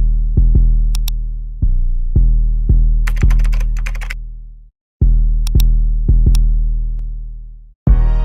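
Background music: a hip-hop style beat of deep booming bass notes from a drum machine, with sharp hits and hi-hat ticks, cutting out briefly about halfway through.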